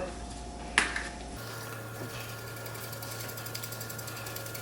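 Black pepper being ground over the meat: a fast, even run of fine grinding ticks over a steady low hum, with a single click just under a second in.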